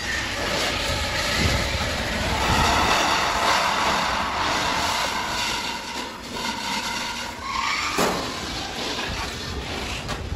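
A large galvanized steel sheet scraping and rattling as it is bent and dragged over other metal sheets, with a sharp metallic clank about eight seconds in.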